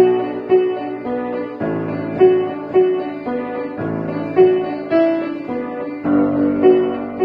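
Instrumental music: a melody of evenly paced notes, about two a second, over chords that change every couple of seconds.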